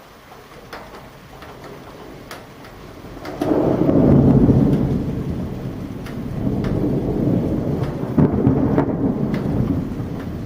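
Rain falling with scattered drop ticks. About three and a half seconds in, a loud rolling rumble of thunder sets in and swells again twice.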